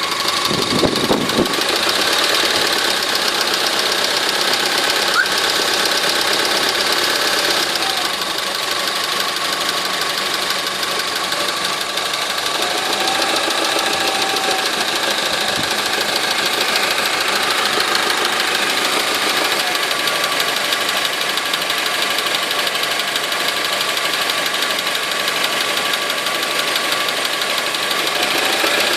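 Honda engine running steadily with a fast, even knocking or ticking that the owner suspects is a knock inside the motor.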